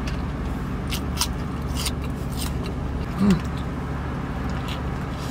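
A person biting into and chewing a fast-food burger, with several short crisp crackles of bun, wrapper and food, over the steady low hum of a car's idling engine. A brief hummed 'mm' comes about three seconds in.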